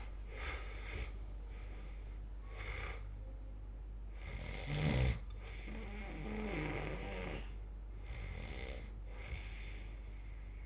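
A sleeping person snoring: soft breaths in and out repeating every couple of seconds, with a louder, low snore about halfway through, followed by a longer one.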